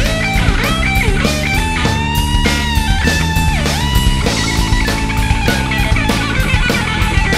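Instrumental rock music: an electric guitar lead plays a melody with bent and sliding notes over drums and a low rhythm part.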